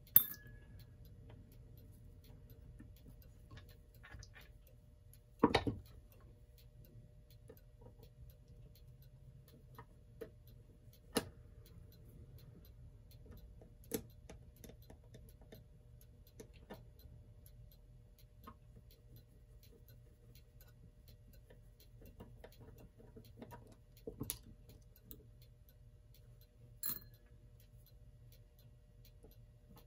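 Scattered sharp clicks and taps of a screwdriver and small metal clock parts during disassembly of an electric clock movement, irregular rather than a steady tick, over a faint steady hum.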